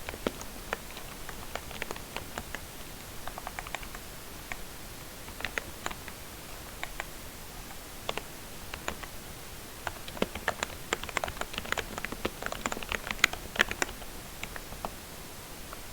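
Typing on a membrane keyboard whose switches have been lubricated: soft, irregular key presses, sparse at first and quickest in a burst of fast typing about two-thirds of the way through, then thinning out.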